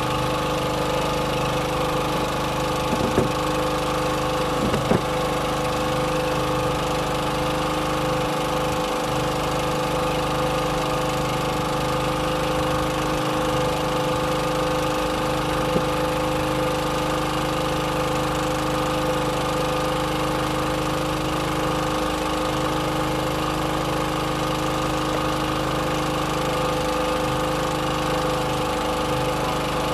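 Boat engine running steadily at idle, an unchanging hum with a few steady tones.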